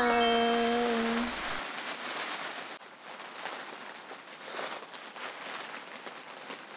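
Rain pattering steadily on the fabric of a dome shelter tent, heard from inside. At the start a voice hums a short held note for about a second.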